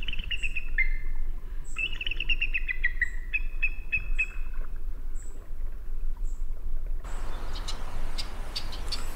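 Small birds chirping: repeated quick descending trills and short high chirps, over a steady low rumble. About seven seconds in the birdsong gives way to a steady hiss with scattered ticks.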